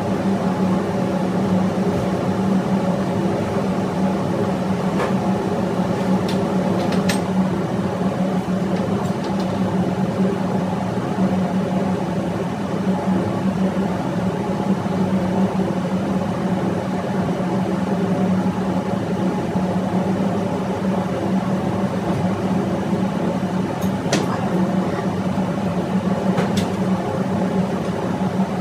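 Steady droning hum of running engine-room machinery, such as a neighbouring diesel generator set, unchanging throughout. A few light metallic clicks of hand tools on the stopped engine come through about five to seven seconds in and twice near the end.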